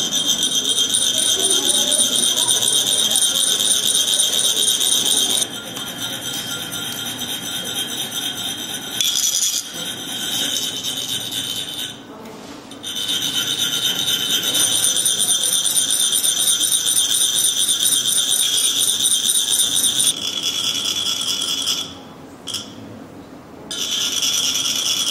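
Metal chak-pur funnels being rasped with a metal rod, which shakes coloured sand out for a sand mandala. It makes a continuous high, ringing, buzzing rasp that drops back or stops briefly a few times.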